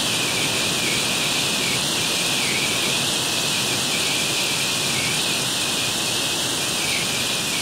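Heavy rain mixed with hail pelting wet pavement: a steady, dense hiss.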